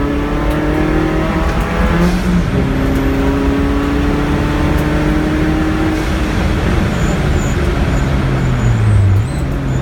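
Car engine at speed on a race track, pitch rising under acceleration, dropping sharply at an upshift about two seconds in, then holding steady. Near the end it dips and wavers as the throttle comes off, over steady road and wind noise.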